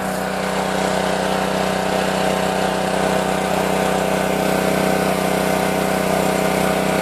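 Pressure washer's Honda GC190 single-cylinder four-stroke engine running steadily, with a steady hiss over it.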